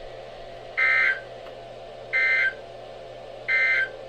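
Three short bursts of Emergency Alert System SAME data tones, the warbling digital code that marks the end of an alert message (the EOM). Each burst lasts about a third of a second, and they come about 1.3 seconds apart over a faint steady hum.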